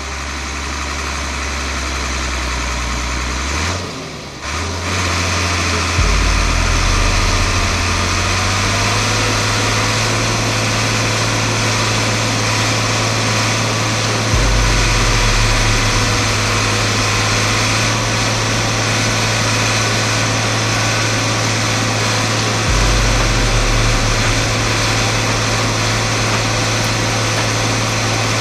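Massey Ferguson 399 tractor's diesel engine running steadily under load while pulling a subsoiler. There is a short dip about four seconds in, and the deep rumble swells a few times.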